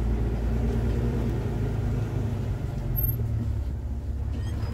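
Off-road Jeep's engine running with a steady low rumble, heard from inside the open-topped vehicle.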